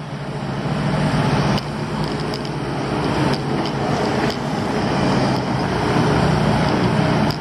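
Diesel engine of heavy construction machinery running steadily under load, with a few sharp metallic knocks scattered through.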